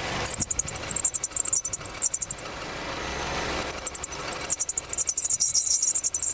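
High-pitched squealing from a car's power steering pump as the steering wheel is turned, in two spells, over an idling engine. The pump is failing and makes the steering want to lock up when turned.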